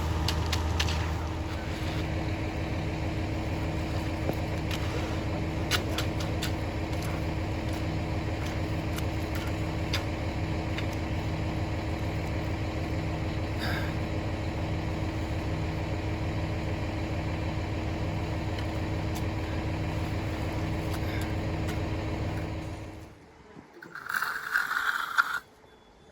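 A machine's engine running steadily with a low, regular pulse, stopping suddenly near the end. A few short scraping sounds follow.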